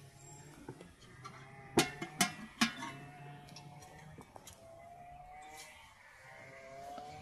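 Three sharp metallic clanks with a brief ring, close together about two seconds in, as metal pieces of a samovar are handled.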